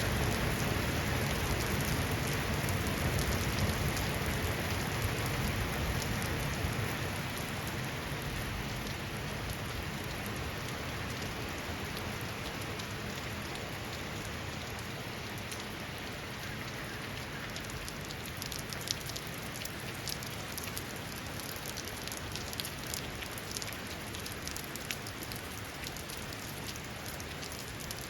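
Steady rain falling, with a low rumble that fades over the first several seconds; in the second half individual drops land in distinct sharp ticks.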